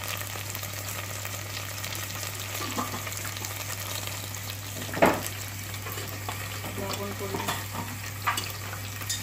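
Onion-and-tomato masala with spices sizzling in hot oil in a stainless steel pot while it is stirred with a wooden spatula, over a steady low hum. A sharp knock sounds about halfway through, with a few lighter clicks near the end.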